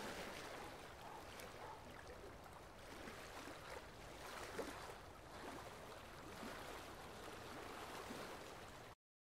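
Small, gentle waves lapping against shoreline rocks, a soft steady wash with little splashes and gurgles. The loudest splash comes about halfway through, and the sound cuts off suddenly near the end.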